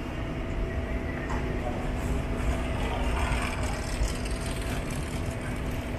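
Steady low mechanical rumble and constant hum of a running baggage carousel in an airport baggage hall, with some light clatter between about two and four seconds in.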